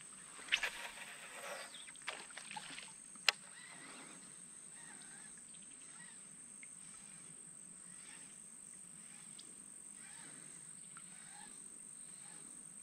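Quiet outdoor river ambience with a faint steady background. A few soft knocks and clicks come in the first few seconds, one of them sharp about three seconds in.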